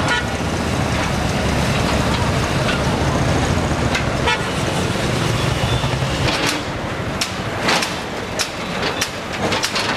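Backhoe loader's diesel engine running steadily under load. From about six seconds in, its rumble drops and a string of sharp cracks and knocks follows as the bucket breaks into the shop fronts.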